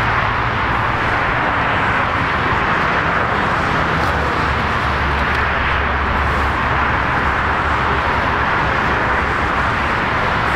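Jet engines of a taxiing Boeing 777-200ER at low taxi thrust: a steady, even rushing hiss with a low hum underneath that grows stronger midway.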